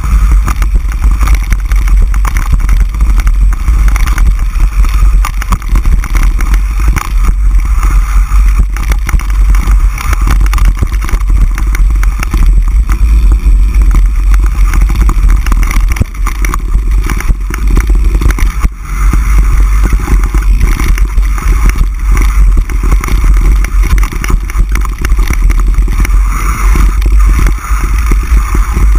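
Mountain bike riding a rough dirt trail, heard from an on-board camera: a heavy, steady rumble of wind and ground vibration on the microphone, with frequent small knocks and rattles as the bike runs over rocks and roots.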